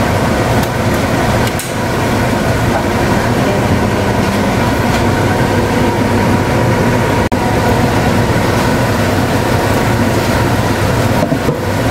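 Steady, loud mechanical whirring with a constant hum, from the kitchen's hob or extractor fan, over chicken livers and gizzards cooking in a wok on an induction hob. The sound drops out briefly about seven seconds in.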